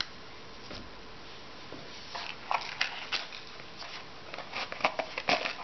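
Small hard clicks and scrapes of a Walther Multi Tac multi-tool being handled as a screwdriver bit is set in its tip. A few sounds in the first two seconds, then a quick cluster of clicks over the last three and a half seconds.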